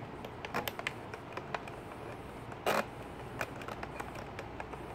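Small plastic clicks from a cheap RC helicopter transmitter's trim switches and sticks being worked by hand, coming irregularly several times, with one brief louder scrape about two and a half seconds in.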